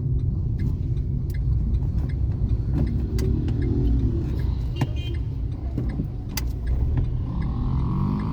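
Steady low rumble of a car driving, heard from inside the cabin, with scattered light clicks and rattles.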